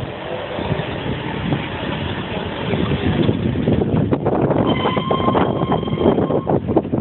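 Wind buffeting a handheld phone microphone outdoors, a dense gusty rumble that grows louder about three seconds in. A thin, steady high tone sounds for about two seconds in the second half.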